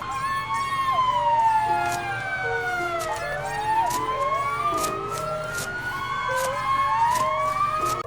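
A siren wailing in one slow sweep: the tone falls for about three seconds, then rises again. It plays over background music with stepped notes and sharp clicks.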